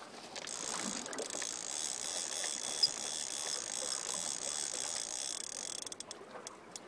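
Spinning fishing reel being cranked steadily: a continuous whirring, ratcheting buzz as line is wound in with nothing on it. It starts about half a second in and stops about six seconds in, followed by a few sharp clicks.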